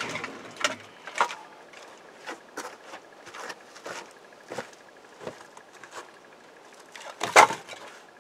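Irregular clicks and knocks of objects being handled, with one louder knock about seven seconds in.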